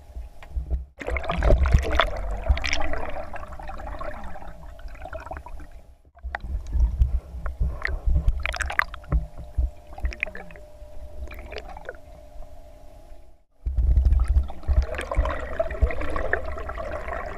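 Water splashing and gurgling with sharp irregular sloshes over a faint steady hum. It comes in three stretches, each cut off abruptly by a short gap: about a second in, around six seconds and around thirteen and a half seconds.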